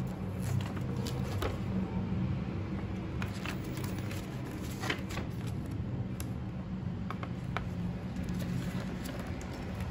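A paper user manual being handled and its pages flipped: scattered soft rustles and light clicks of paper, over a steady low hum.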